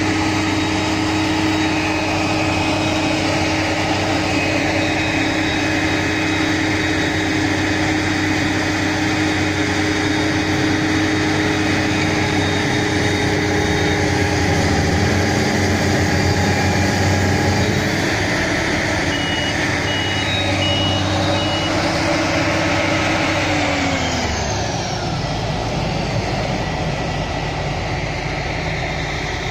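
Large Fendt tractor diesel engines running hard under load in deep mud, with a few short beeps about two-thirds of the way through. Near the end the engine revs fall away and it settles lower.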